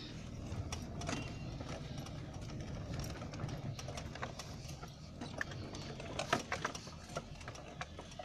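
Maruti 800's small three-cylinder petrol engine running at low speed, heard from inside the cabin, with scattered clicks and rattles over the steady low hum.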